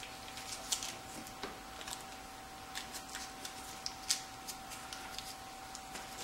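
Faint, scattered clicks and crackles of gloved hands pulling apart an old engine-bay wiring harness: wires, plastic loom and connectors rubbing and snapping. A faint steady hum runs underneath.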